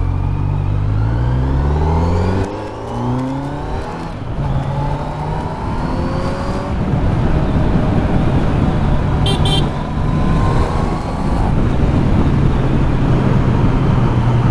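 Kawasaki Z900's inline-four engine accelerating through the gears, its pitch climbing and dropping back at each of several shifts, then running at a steady speed. A brief high-pitched chirp sounds about nine seconds in.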